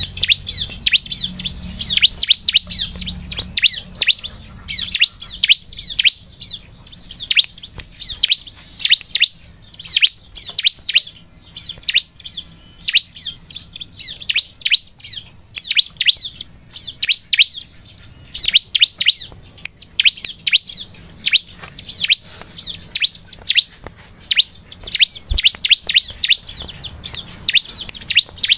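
Bar-winged prinia (ciblek) singing: rapid bursts of sharp, high chirps that sweep downward, repeated over and over with short gaps.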